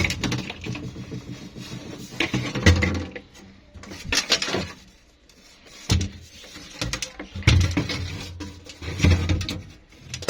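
Hands working a refrigerator's bottom evaporator plate loose: irregular scrapes, clicks and a few dull thumps.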